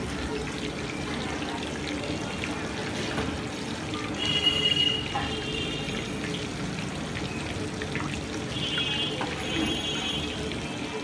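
Mutton chaap frying in hot oil on a large flat pan: a steady sizzle and bubbling. A brief high-pitched tone sounds about four seconds in, the loudest moment, and a fainter one near the end.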